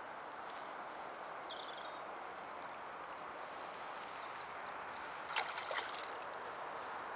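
Steady outdoor background hiss with small birds chirping in short high phrases, and a quick cluster of sharp clicks about five and a half seconds in.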